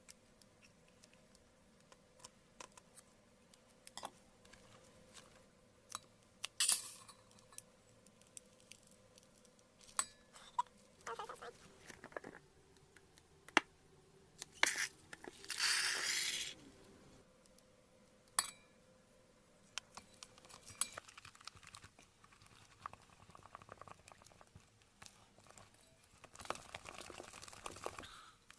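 Slime-filled stress ball being handled and cut: scattered small clicks and taps, with two brief noisy rushes, the longer one about fifteen seconds in, and a stretch of plastic crinkling near the end.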